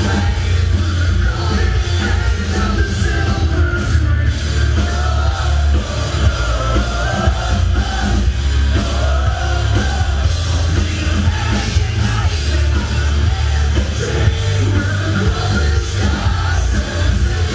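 Live metalcore band playing loud with electric guitars, bass and drums, and a singer's vocals over them.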